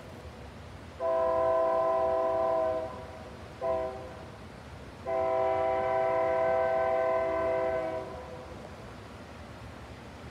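Freight locomotive air horn sounding a multi-note chord: a long blast about a second in, a short blast, then a longer blast of about three seconds, the closing long-short-long of a grade-crossing signal.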